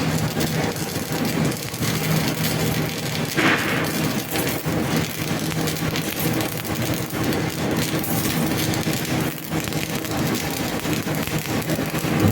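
Stick (shielded metal arc) welding with a 6013 electrode: the arc crackles and sizzles steadily, with a steady low hum under it.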